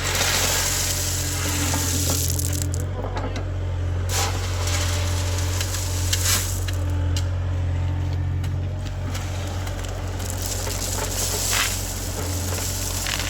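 A heavy machine's engine running steadily with a low hum, with gritty crunching and scraping over it, as of gravel or soil being moved.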